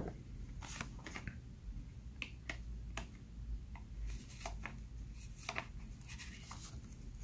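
Faint, scattered light clicks and rustles of trading cards being handled and slid into the plastic sleeve pockets of a ring binder.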